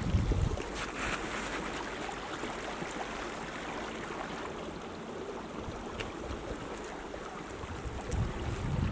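Wind blowing against the microphone: a steady rushing hiss, with low buffeting gusts toward the end.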